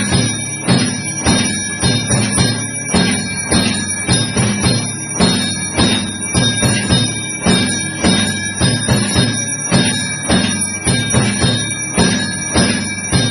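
Temple aarti accompaniment: bells ringing continuously over a steady, evenly repeating drum beat, with no singing.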